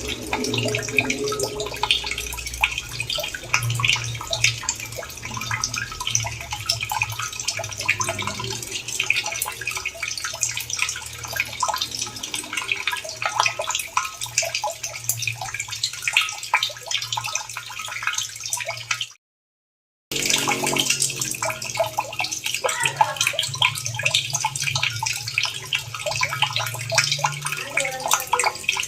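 Running water splashing steadily, with many small drips and splashes. It cuts out completely for about a second two-thirds of the way through, then resumes.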